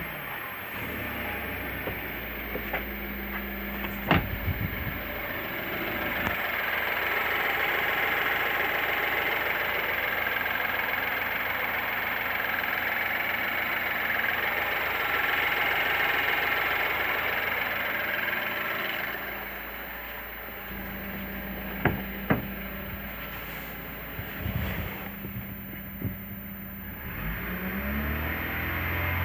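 BMW N20B20 2.0-litre turbocharged four-cylinder engine running with a whistle, the fault the recording sets out to show. The hissing whistle grows louder for a stretch in the middle, then settles back; a few sharp clicks are heard along the way.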